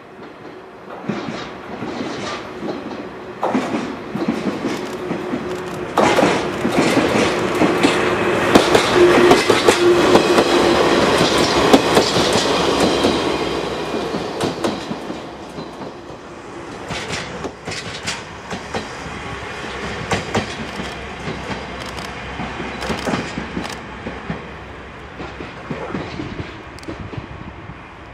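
A diesel locomotive moving a KiHa 47 diesel railcar passes close by at moderate speed. The engine sound swells to its loudest about ten seconds in, then eases as the train moves away, with repeated clickety-clack of the wheels over rail joints throughout.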